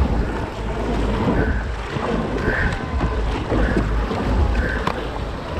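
Double-bladed kayak paddles dipping and pulling through the water in a steady rhythm, about one splash a second, over water rushing along a tandem sit-on-top kayak's hull. Wind buffets the microphone with a low rumble.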